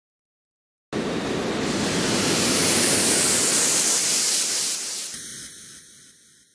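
Synthesized noise sound effect made in FL Studio: a loud hiss starts suddenly about a second in, its bright upper part sweeping slowly downward like a filter sweep, then it thins out and fades away with a swirling, phaser-like tail near the end.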